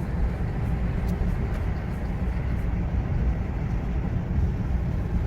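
Road and engine noise inside a moving car's cabin: a steady low rumble with no distinct events.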